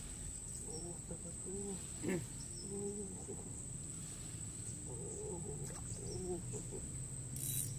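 Steady high-pitched drone of insects, with one sharp click about two seconds in.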